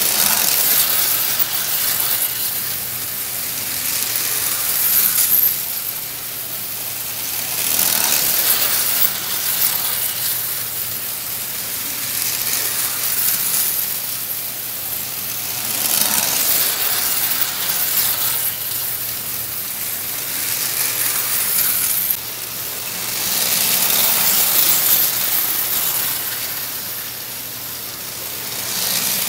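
Prewar Lionel toy trains running on metal track, their wheels and motors clattering steadily, growing louder every several seconds as a train passes close by, over a faint steady low hum.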